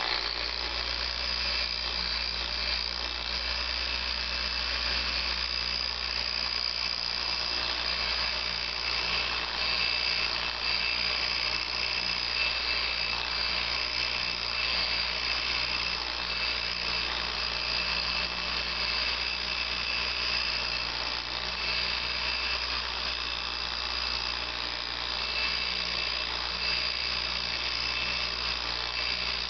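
Electric car buffer running steadily, its foam pad spinning over a CD held in the palm to polish out scratches, with a steady motor whine and hum.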